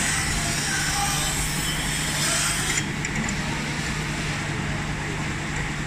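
Automatic melamine tray polishing machine running: a steady motor hum under a wide hiss from the polishing heads grinding the tray edges. The upper part of the hiss falls away a little under three seconds in.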